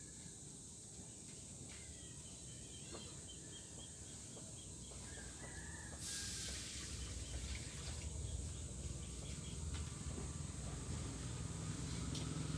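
Faint outdoor background noise with a run of quick, high chirps early on and a low rumble that grows louder toward the end.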